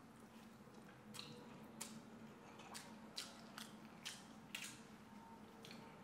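Near silence: faint room tone with a steady low hum and about eight faint, irregular short clicks.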